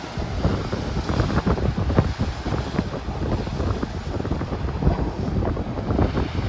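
Wind buffeting the microphone: a gusty, low rumble that flares up irregularly every fraction of a second.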